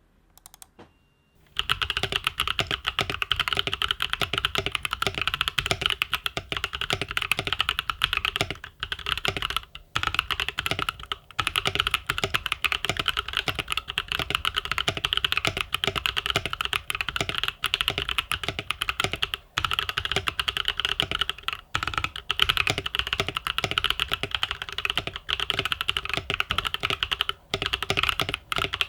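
Fast, continuous typing on an Idobao ID80 mechanical keyboard with Gazzew Boba U4T tactile switches lubed with Krytox 205g0, PBT keycaps clacking. It starts about a second and a half in, with brief pauses now and then.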